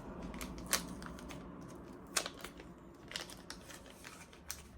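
Packaging and small accessory parts being handled on a table: a few sharp plastic clicks and taps, the loudest near the start and about two seconds in, over light rustling.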